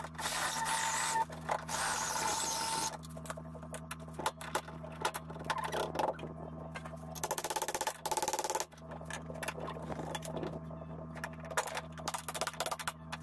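A power drill cutting into the steel of a Honda CRX's front frame rail for about three seconds, then a run of sharp metal knocks and clanks as a hammer and pry bar work at the motor mount. A steady low hum runs underneath.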